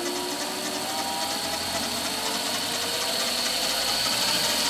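Smarty AT-300 lathe spindle speeding up, driven through belts by a VFD-controlled 750 W three-phase motor as the drive frequency is turned up. The motor and drive whine rises steadily in pitch and grows a little louder.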